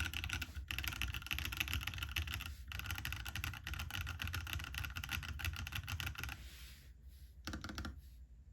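Fast, continuous typing on a custom mechanical keyboard with an aluminium plate and Akko POM Pink switches lubed with Krytox 105, keystrokes clacking in a dense stream. The typing stops about six seconds in, with a short final flurry of keys a second or so later.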